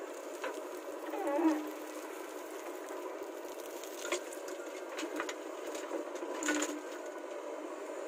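JCB 3DX backhoe loader's diesel engine running steadily while the backhoe digs and lifts soil, with a few sharp knocks and scrapes from the bucket and soil, the loudest about a second and a half in.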